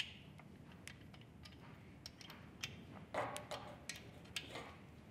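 Faint scattered small metallic clicks and ticks as an Allen wrench snugs down the bolts on an LED light bar's mounting bracket, with brief handling rustle a little past three seconds in.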